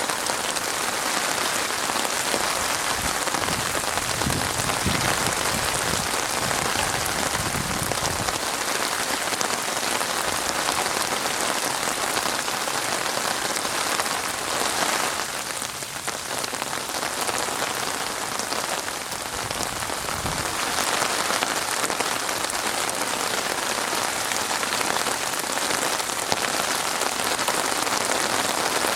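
Steady rain falling and pattering on a surface, a dense even hiss of drops, with some deeper low rumble in patches.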